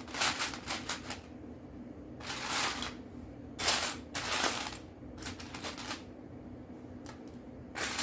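Small plastic Lego pieces clicking and clattering in irregular bursts as a hand rummages through them looking for a piece.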